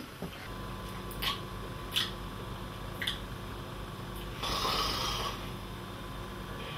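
A steady electrical hum with three short, separate clicks, then a man's breathy snore lasting about a second, a little past the middle.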